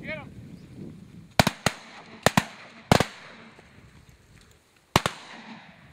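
A volley of shotgun blasts at passing ducks, about seven sharp shots in quick groups of one or two, each with a short echo. A last quack is heard at the very start.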